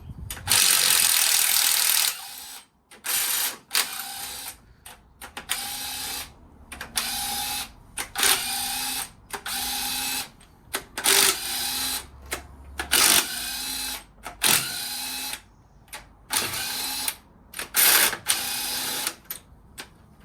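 A power tool undoing cylinder head bolts on an old Land Rover engine, run in a series of short bursts of about one to two seconds each with brief pauses between, each burst a steady whine over a rattle.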